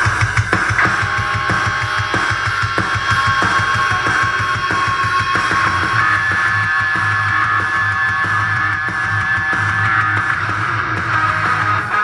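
Guitar-driven rock music with a strong, pulsing bass, played loud through a dB Audio Max 42 2.1 computer speaker system with a 4-inch subwoofer.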